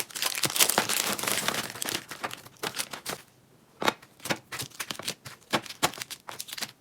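Packaging crinkling while items are handled, followed by a string of light clicks and taps with a short pause about halfway through.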